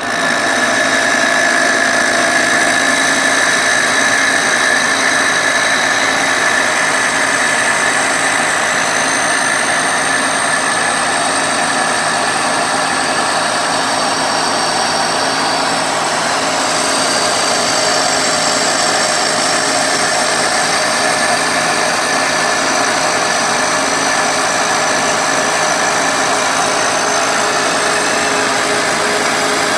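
Kearney & Trecker milling machine taking a face-mill pass across a cast iron straight edge casting: a steady, loud machine and cutting noise with high ringing tones that holds evenly throughout.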